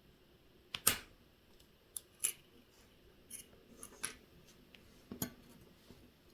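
Sharp, light clicks and taps of small metal watch parts and tools being handled during watch restoration work. Several come in quick pairs, and the loudest is about a second in.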